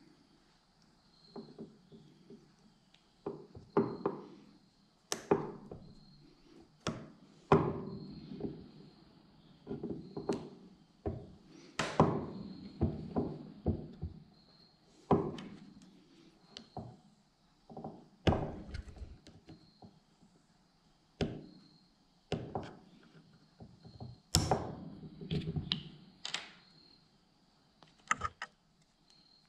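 Irregular knocks and clicks of metal engine parts, a forged piston and connecting rod, being handled and set down on a wooden workbench during piston-and-rod assembly.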